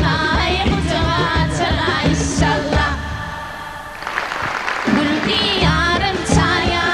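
A song with singing over a strong beat, in the style of Turkmen kushtdepdi folk song and dance. The beat drops out about three seconds in and comes back about two seconds later.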